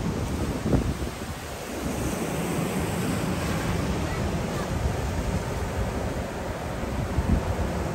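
Ocean surf breaking and washing up the beach, a steady rush of water, with wind buffeting the microphone in short low gusts.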